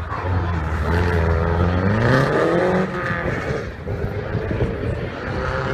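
Rally car engine accelerating hard, its pitch rising steadily for about two and a half seconds, then dropping abruptly about three seconds in and running on lower and rougher.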